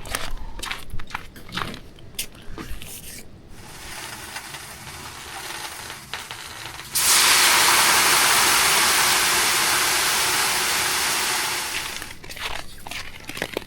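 Water thrown onto the hot stones of a sauna stove, hissing into steam (löyly). It opens with a run of clicks and knocks and a softer hiss; about seven seconds in, a sudden loud hiss lasts some five seconds and fades.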